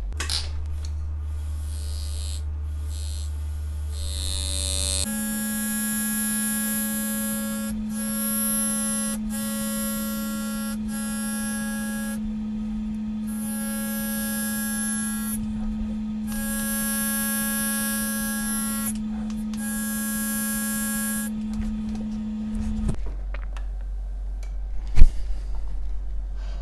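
Powered engraving handpiece buzzing in about eight short start-stop runs of one to three seconds, over a steady electric hum, as the freshly sharpened graver cuts a letter into copper plate.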